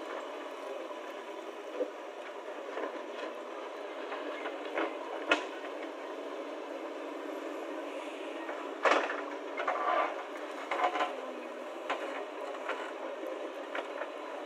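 JCB 3DX backhoe loader's diesel engine running steadily as the backhoe digs. Sharp clanks and knocks from the arm and bucket come every second or two, the loudest about nine seconds in.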